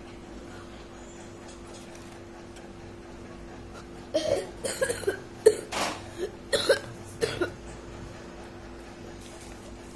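A run of short, clipped vocal sounds from a person, eight or so in a row, from about four seconds in to about seven and a half, over a steady low electrical hum.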